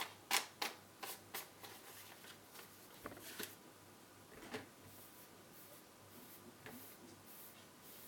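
Sharp clicks and light handling of small hand tools and a circuit board on a workbench: a quick run of clicks at first, a couple more about three seconds in, then faint ticks and rustling.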